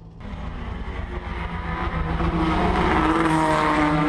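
Fox-body Mustang drift car's engine running hard at a steady pitch, heard from inside the cabin. It grows louder over the first two seconds, then holds.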